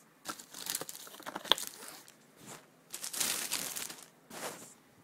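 Clear plastic shrink wrap crinkling and tearing as it is pulled off a box, in several irregular bursts, with one sharp click about one and a half seconds in.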